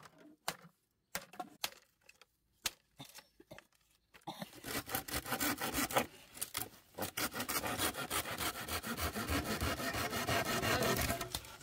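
A hand saw cutting through a green bamboo pole in rapid, even strokes, starting about four seconds in. Before that, a few scattered sharp knocks.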